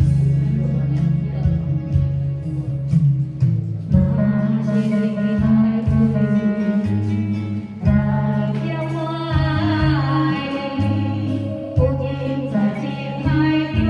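Karaoke backing music with a steady bass line; a melody comes in about four seconds in and grows fuller about eight seconds in.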